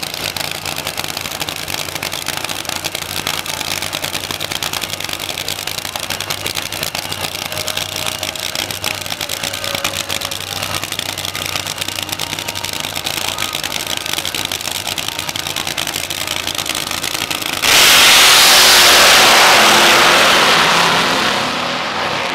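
Drag race cars running at idle on the starting line; about 18 seconds in they launch at full throttle, very loud, then fade as they pull away down the strip.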